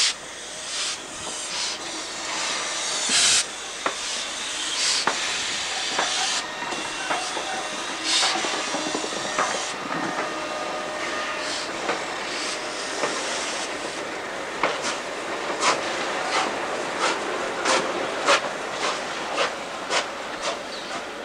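Victorian Railways R class 4-6-4 steam locomotive R766 moving off slowly, with steam hissing in loud surges from the open cylinder drain cocks. In the second half, sharp short beats come about one to two a second and get quicker as it gathers pace.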